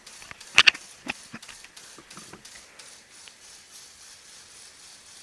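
Clicks and knocks of LEGO Technic plastic parts being handled, loudest in a cluster about half a second in and dying away by about two and a half seconds. Underneath, a faint steady whir from the set's electric motor driving the pneumatic pump.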